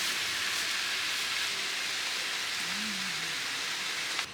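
Food sizzling and frying in a hot pan, a steady hiss that cuts off abruptly near the end.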